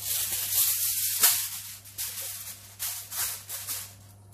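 Aluminium foil crinkling and crackling as it is pressed down over the rim of a cooking pot, with one sharp crack about a second in. It dies away near the end.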